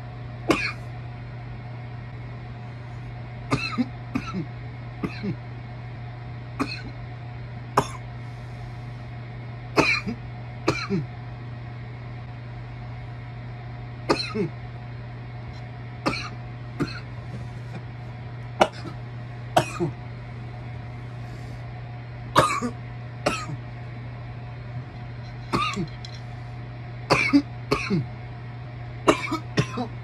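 A person coughing again and again after hits from a bong, the smoke setting off the coughs: single coughs and short runs of two or three every few seconds, over a steady low hum.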